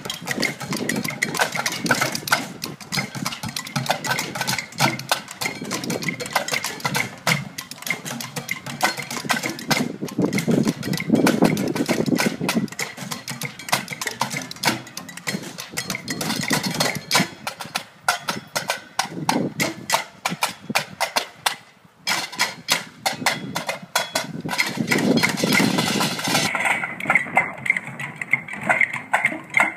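Junk percussion ensemble improvising together: sticks beating plastic buckets, PVC pipes, a cardboard box and metal tubs in a dense, busy groove. It breaks off almost completely for a moment about two-thirds of the way through, then picks up again.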